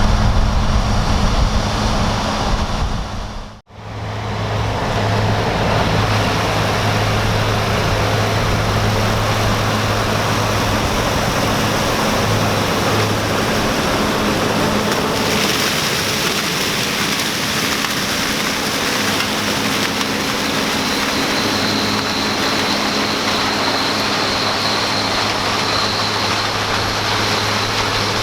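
Heavy diesel farm machinery running steadily during a maize harvest, a constant low engine hum under a broad mechanical rush. The sound breaks off briefly about four seconds in, then resumes, and later a faint high whine joins it.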